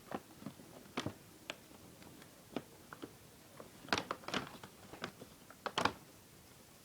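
A kitten playing: irregular light taps and scuffles, busier and louder for a moment about four seconds in and again near the end.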